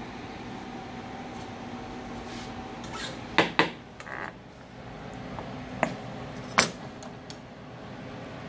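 Knives knocking on a plastic cutting board as they are picked up and set down: four sharp clacks, two close together and then two more, over a steady background hum.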